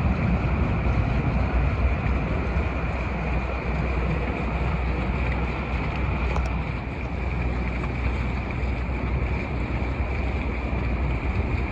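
Steady wind noise on the microphone over a low rumble, aboard a sailboat under way on the river.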